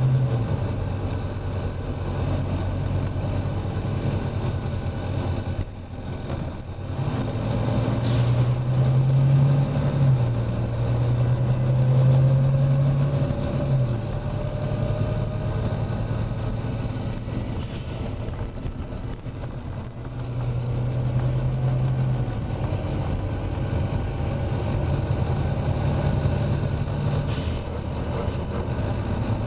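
Volvo B9TL double-decker bus's six-cylinder diesel engine pulling under load, its note dropping and picking up again several times as it works through the gears, with a faint rising whine in the middle. Three short hisses of air are heard, about ten seconds apart.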